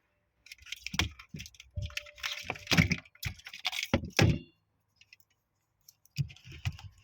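Handling noises: a quick run of clicks, knocks and rattles, like a multimeter and its test leads being picked up and handled, then a pause of about a second and a half before more knocks near the end.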